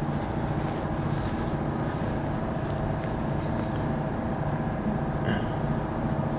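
A steady low engine drone.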